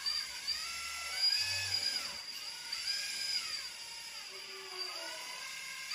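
Electric hydraulic pump of an RC Liebherr 926 excavator model whining, its pitch rising, holding and falling again several times as the boom and arm are moved on the hydraulics, over a steady high whine.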